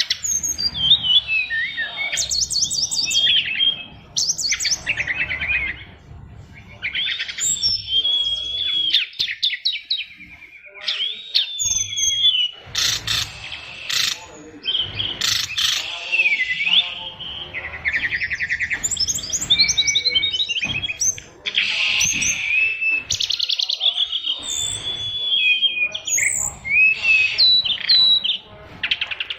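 An SRDC (sikatan rimba dada coklat, a brown-chested jungle flycatcher) singing a long, varied song of whistles, slurred notes and fast trills, packed with imitated calls of other birds.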